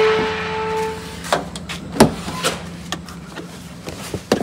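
A steady electronic tone for about the first second, then a run of sharp clicks and knocks as a car door is opened and someone climbs into the driver's seat.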